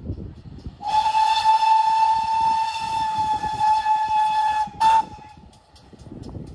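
Steam locomotive whistle: one long, steady blast of about four seconds, then a short toot right after it, as the train approaches.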